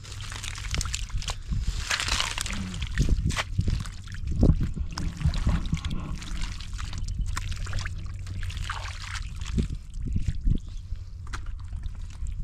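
Hands and feet squelching and sloshing in shallow muddy water, with irregular small splashes and trickles as the mud is groped through by hand for fish.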